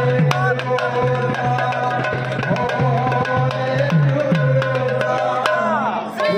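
Two double-headed barrel drums of Sambalpuri kirtan, the khol (mrudanga), played fast together: a dense run of sharp slaps with deep bass strokes that slide in pitch. A steady held tone runs underneath.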